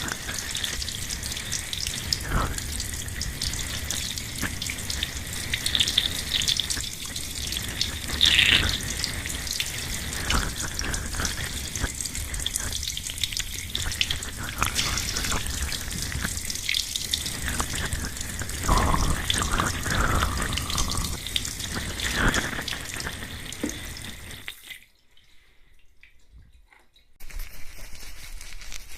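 Wet hair being washed with shampoo: a crackly, wet scrubbing and squishing of lather, with water, recorded binaurally. The sound drops away for about two seconds near the end, then resumes.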